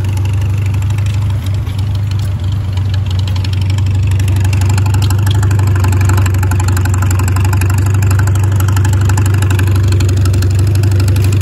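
An engine running steadily with a fast, even firing rhythm, growing a little louder about four seconds in.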